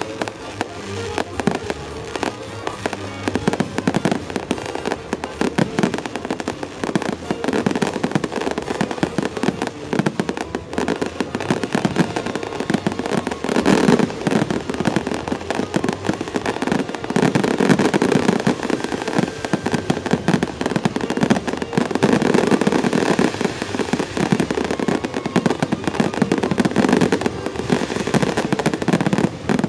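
Aerial firework shells bursting in a dense barrage, the bangs overlapping into continuous crackle. It swells loudest about halfway through and again a little later.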